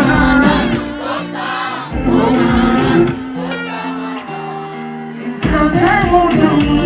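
Live band music with singing: the drums and bass drop out for a few seconds, leaving held chords and voices, then the full band comes back in near the end.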